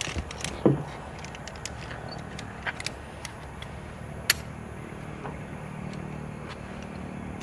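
Scattered sharp clicks and clinks of climbing gear as a carabiner and rope are handled at a climbing harness, with one louder click a little past the middle, over a steady low hum.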